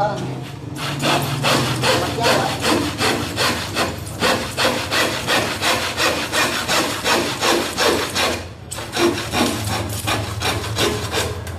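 Hand saw cutting through plywood in steady back-and-forth strokes, about three a second. The strokes break off briefly about eight seconds in, then start again.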